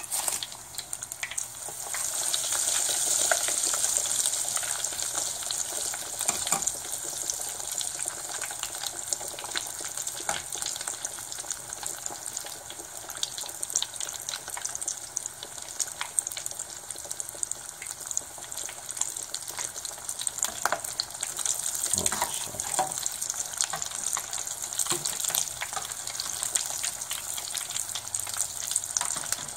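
Rice balls (arancini) deep-frying in hot oil in a stainless steel saucepan, a steady sizzle that swells about two seconds in and again past two-thirds of the way. Light clicks of a metal slotted spoon against the pot come and go as the balls are turned.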